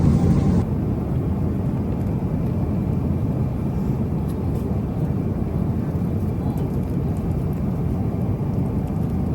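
Steady low rumble of a jet airliner cabin in flight, engine and airflow noise. Just after the start the level and the upper hiss drop suddenly, then the rumble carries on evenly.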